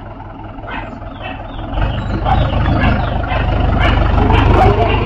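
Mahindra 585 tractor's four-cylinder diesel engine running as the tractor moves off, growing louder from about two seconds in as it comes closer.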